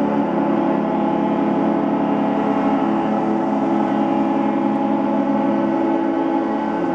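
Many ships' and yachts' horns blowing at once, a dense, unbroken chord of held tones at many different pitches.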